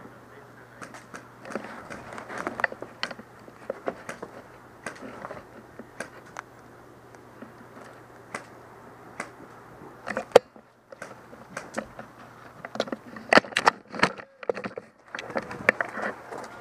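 Irregular scuffing footsteps on dry dirt and rattling gear of a player on the move, with scattered sharp clicks, the loudest about ten seconds in, over a low steady hum.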